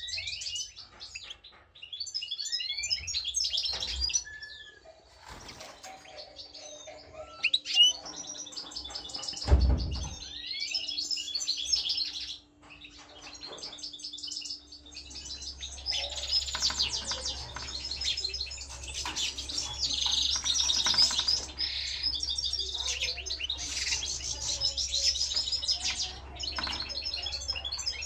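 European goldfinch singing its fast twittering song in bouts, nearly unbroken in the second half. A dull thump sounds about a third of the way in.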